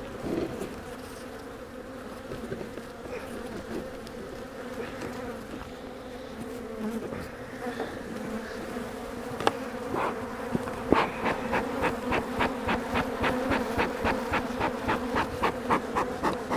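Honey bees from an open, crowded hive buzzing in a steady hum. A regular ticking, about three a second, joins in after about eleven seconds.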